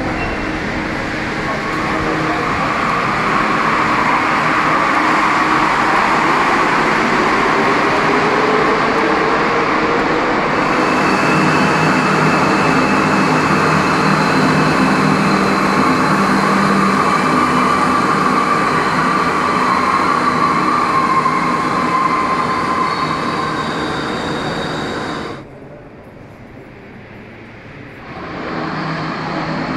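Alstom NS-16 rubber-tyred metro train running, with a steady rolling rush and a motor whine that rises in pitch a few seconds in. Near the end the sound drops away sharply for about three seconds, then the train noise returns.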